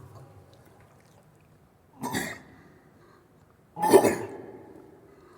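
Orangutan calling: two short calls about two seconds apart, the second louder and longer.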